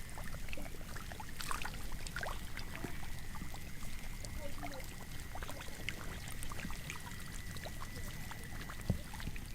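Shallow muddy water trickling and pouring lightly, with scattered small splashes and clicks, over a faint steady high whine.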